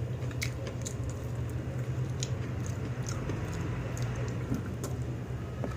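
Close-up eating sounds: chewing and small mouth clicks while eating fried chicken with gravy, over a steady low hum.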